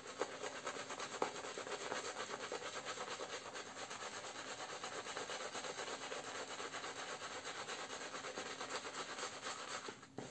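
Omega S49 synthetic shaving brush scrubbed over a stubbled face, working up a lather of Proraso White shaving soap: continuous rapid bristle-on-skin rubbing that stops just before the end. This is the lather being built up on a face that started dry.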